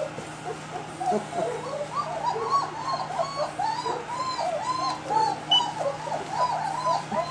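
Three-week-old German Shepherd puppies whining and crying, a fast string of high rising-and-falling whimpers that becomes near-continuous from about two seconds in.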